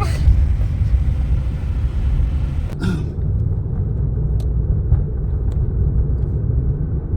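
Steady loud low rumble, with a brief rustle about three seconds in.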